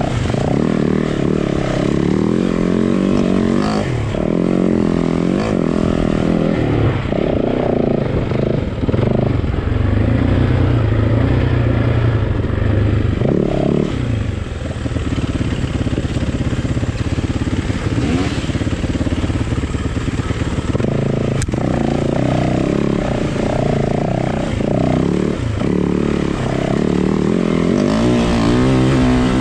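Yamaha WR four-stroke single-cylinder enduro motorcycle engine being ridden, its revs rising and falling continually with throttle and gear changes.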